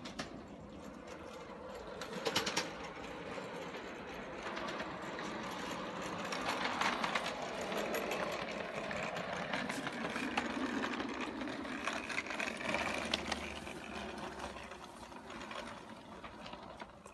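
A 5-inch gauge ride-on miniature locomotive running along portable track with a rapid mechanical clatter and a few sharp clicks. It grows louder as it passes close by, then fades as it moves away.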